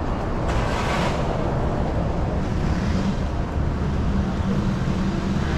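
Street traffic: a car goes by about a second in, then a low steady engine hum.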